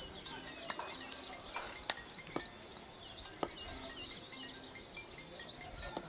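Outdoor ambience full of small birds chirping, many short high calls overlapping, with a few sharp clicks in the middle.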